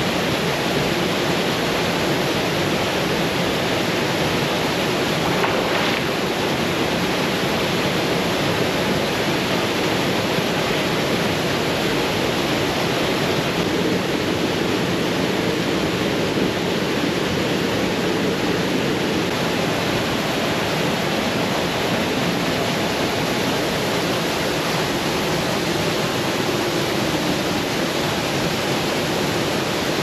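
Steady rush of a waterfall: a constant, even roar of falling water.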